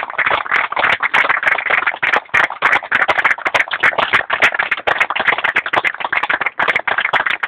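An audience applauding: dense clapping from many hands that keeps on without a break.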